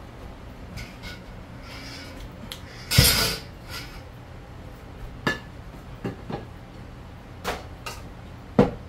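Serving spoon knocking and scraping against a steel cooking pot while food is dished up, a string of separate clinks with the loudest clatter about three seconds in.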